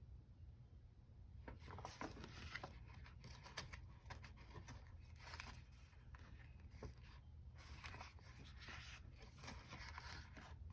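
Faint paper rustling and crackling as stickers are peeled from their sheet and pressed onto a planner page, over a steady low hum.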